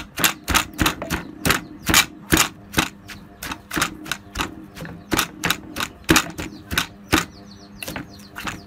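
Pestle pounding in a mortar while making papaya salad, sharp knocks at an even pace of about two to three a second.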